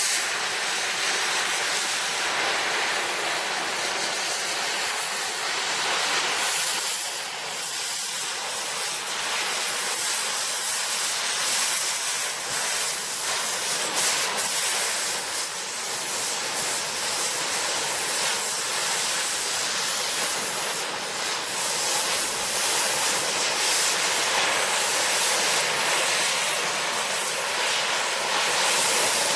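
Cutting torch burning with a steady, loud hiss while cutting into a steel safe.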